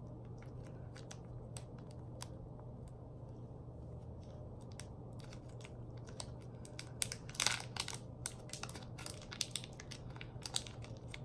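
Plastic snack wrapper crinkling and tearing as it is picked open by hand, in scattered small crackles with a louder rustle about seven and a half seconds in.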